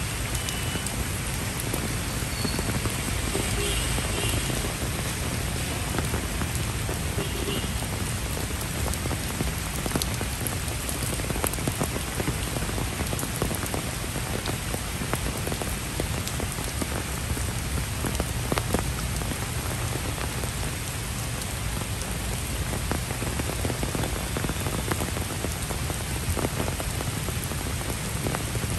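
Steady rain falling on paved paths, puddles and foliage, with many sharp drop hits close by and a low rumble underneath.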